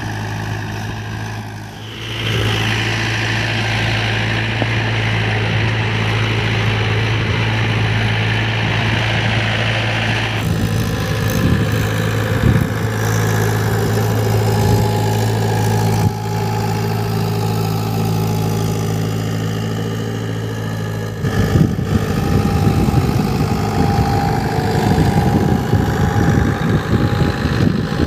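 Mahindra diesel tractor engine running steadily under load as it pulls a peanut seed drill, heard in several short takes cut together. A hiss lies over it between about 2 and 10 seconds, and the sound turns rougher and choppier from about 21 seconds on.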